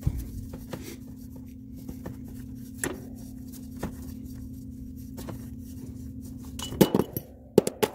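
Small copper tubing cutter being worked on the line at a heat pump's filter drier: faint scraping and scattered clicks, then a few sharper metallic clicks and knocks near the end. A steady low hum runs underneath.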